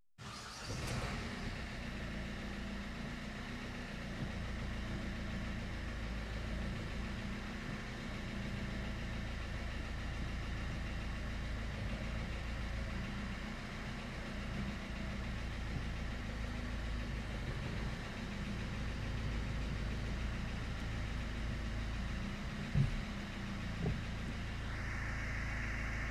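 Ford Fiesta 1.4 TDCi four-cylinder diesel engine starting and settling into a steady idle at about 900 rpm. Near the end there is a single sharp knock, then a higher whir joins the idle.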